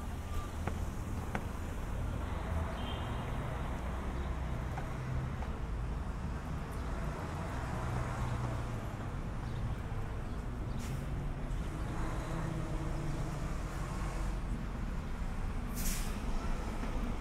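Street traffic ambience: a steady low rumble of cars and trucks, with a short hiss near the end.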